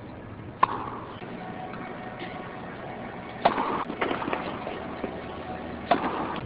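Tennis racket striking the ball on serves: three sharp pops, about a second in, midway and near the end, each ringing briefly in an indoor arena. A few lighter hits and bounces follow the middle one.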